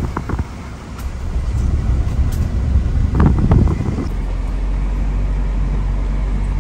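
Suzuki car driving along a rural road: uneven road and wind rumble through an open window with a few louder swells. After about four seconds it settles into a steady low hum of engine and tyres.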